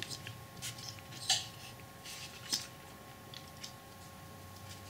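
Small clicks and light handling noises of fingers pressing and bending a thin copper-wire handrail on card model steps, the sharpest click about a second in, over a faint steady hum.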